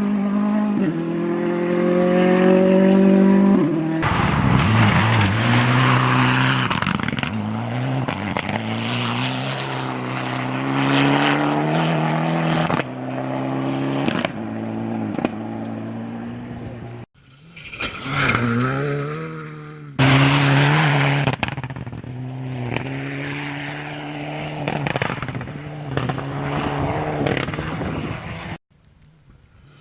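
Rally cars at full speed on a gravel forest special stage. The engines rev up and drop back repeatedly through gear changes, with tyre and gravel noise, in several short clips of different cars that cut abruptly from one to the next.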